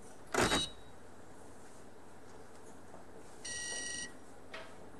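Electronic scoreboard giving one steady beep of just under a second as a score is entered, near the end. A short, loud clatter comes about half a second in.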